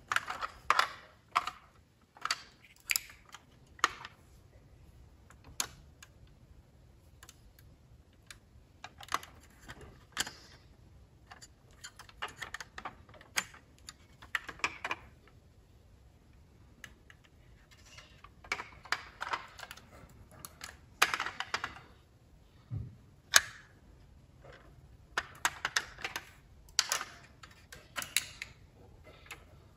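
Irregular small clicks and taps of a Jada Toys diecast metal model car being handled, as its hinged bonnet, doors and boot are opened and pressed. The clicks come singly and in quick clusters throughout.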